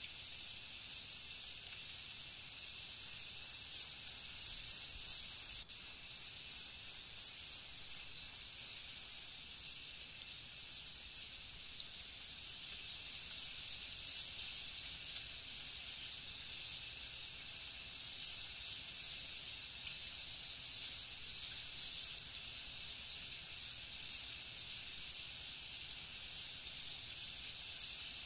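Steady high-pitched insect chorus, with a run of quick high chirps, about four a second, from about three to nine seconds in.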